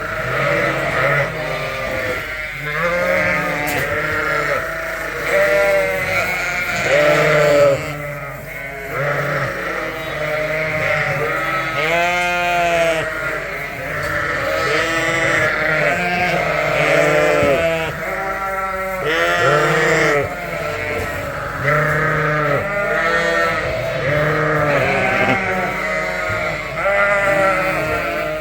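A flock of ewes and lambs bleating continuously, with many calls overlapping: deep ewe calls and higher lamb cries. The ewes and lambs are calling to find each other after being moved together into a new pen.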